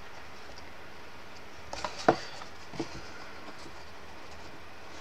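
Thin card stock handled and folded by hand: a few short crinkles and taps about two seconds in, one sharper than the rest, then another soft tap, over a steady low hiss.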